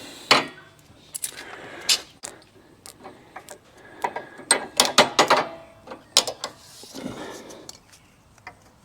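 Hand tools and small metal parts being handled: a scattering of irregular clicks and clinks, with a cluster of quick ones about four to five seconds in.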